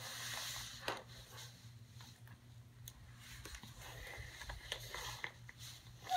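Faint scattered clicks, taps and rustling of plastic toy dinosaur figures being handled, over a steady low hum.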